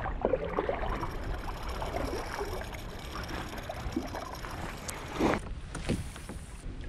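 Small clicks and knocks as a buzzbait lure and tackle are handled aboard a kayak, over faint water and wind noise, with one louder knock about five seconds in.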